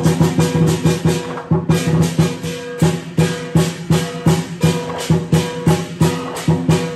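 Lion dance percussion ensemble playing a fast, steady beat: a big drum with clashing cymbals and a gong, about four strikes a second.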